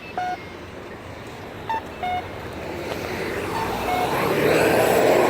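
Crosswalk push-button accessible pedestrian signal sounding short two-note beeps, a higher note followed by a lower one, repeating about every two seconds. A passing vehicle's road noise swells through the second half and nearly covers the last pair.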